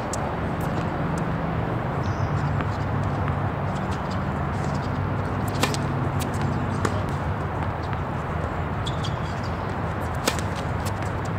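Steady background noise of a tennis venue with a low hum, broken by a few scattered sharp clicks.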